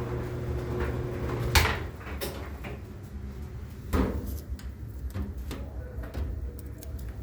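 GE clothes dryer running with a steady hum, which stops about a second and a half in as its door is opened with a sharp click. A heavier clunk follows about four seconds in, then a few light clicks and handling noises.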